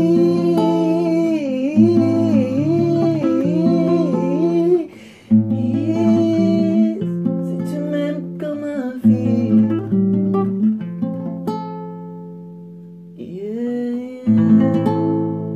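Wordless male vocalising, a wavering hum-like melody, over chords on a classical guitar for about the first five seconds. Then the guitar plays on alone, chords struck and left to ring out and fade. Near the end a voice rises into a held note over one last chord.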